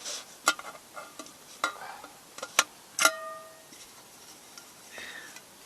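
Metal camp gear being handled: a string of sharp clinks and knocks, several leaving a brief metallic ring, the loudest about three seconds in.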